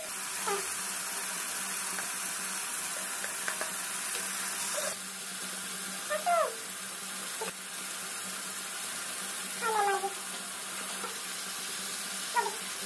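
Steady sizzle of minced meat, onions and tomato frying in oil in a wok. A few short high calls that slide down in pitch sound now and then, about halfway through and near the end.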